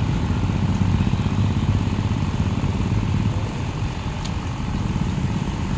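An engine runs steadily with a low, even rumble.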